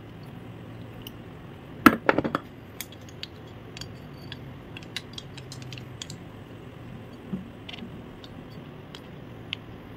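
Small clicks and taps of a finned aluminium heatsink knocking against a power supply circuit board as it is handled and test-fitted over the regulators, with a cluster of louder knocks about two seconds in.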